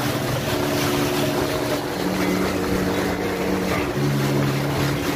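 Motor of a small outrigger fishing boat running steadily under way, with wind and the rush of water.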